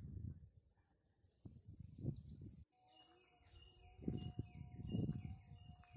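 Faint outdoor ambience of birds chirping, with short falling calls repeated several times in the second half, over a few soft low thuds of footsteps and phone handling. The sound changes abruptly about two and a half seconds in.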